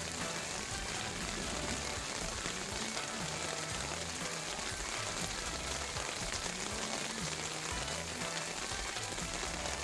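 Heavy rain falling steadily, a dense even hiss of drops on leaves, with soft low music underneath.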